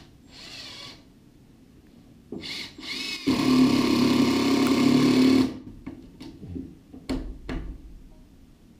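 Cordless drill-driver driving a screw into a wooden post to fasten a conduit strap: a brief spin at the start, two short bursts, then one steady run of about two seconds as the screw goes in. Two sharp knocks follow near the end.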